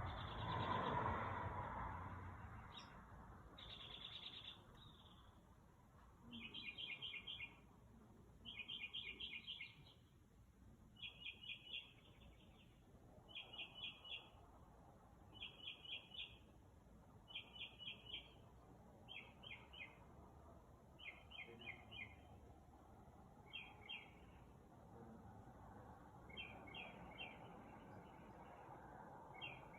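A bird singing at night: a short burst of rapid, high notes, repeated about every two seconds. A rush of noise in the first couple of seconds is louder than the song.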